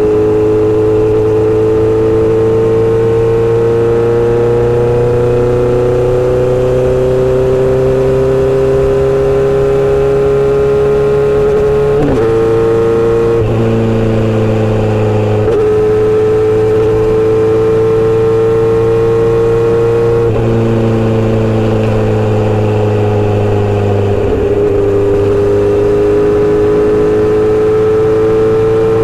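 Inline-four motorcycle engine and exhaust running under way, a steady note whose pitch slowly climbs and eases with the throttle, with short breaks a few times where the gears are changed.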